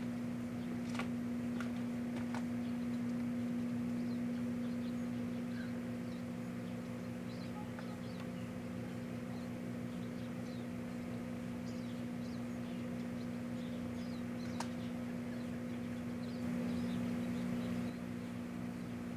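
Microwave oven running with a steady electrical hum and scattered faint ticks and crackles, heating a fountain firework and a butane lighter. The hum swells briefly near the end.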